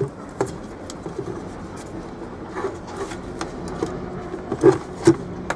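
Scattered clicks and knocks from handling a circuit board and tester probes, with two louder knocks near the end.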